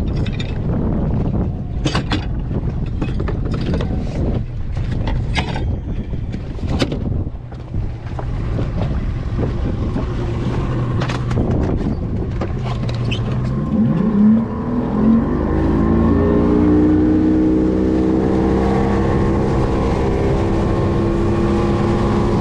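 Knocks and clatter of gear being handled on a fiberglass skiff's deck over wind and water noise, then about 14 seconds in an outboard motor starts, its pitch rising, and runs steadily as the boat gets under way.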